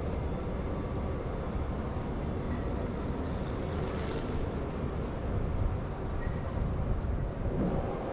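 A train rumbling past, a steady low rumble with a brief hiss about three to four seconds in.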